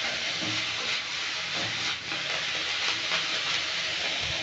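Ponnanganni greens (dwarf copperleaf) sizzling steadily in a little oil in an aluminium kadai, stirred and tossed with a wooden spatula that scrapes against the pan.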